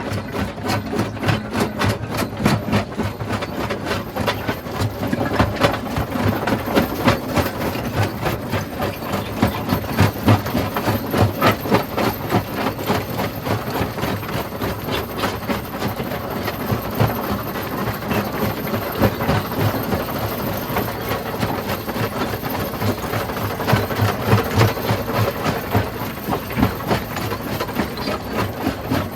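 Rock crushing machine running under load, with a constant grinding din and a dense stream of irregular knocks and cracks as stone is broken.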